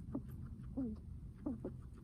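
Guinea pig's heavy breathing: a short squeaky sound that drops in pitch, repeated with each breath about four times.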